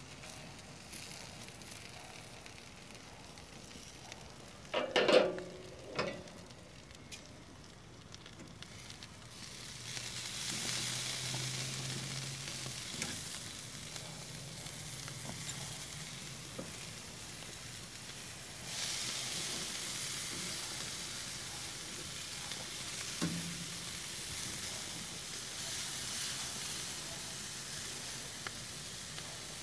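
Burgers and chicken sizzling on a barbecue grill. The sizzle swells about ten seconds in and grows louder again a little before twenty seconds. A brief loud pitched sound comes about five seconds in.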